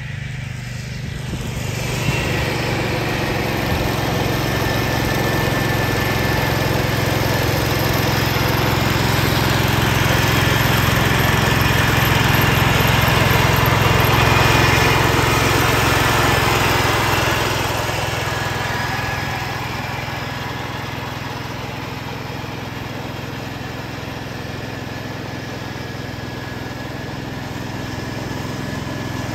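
1969 Ford 140 garden tractor's engine running steadily under load with its mower deck mulching leaves, growing louder as it passes close about halfway through, then fading as it drives away.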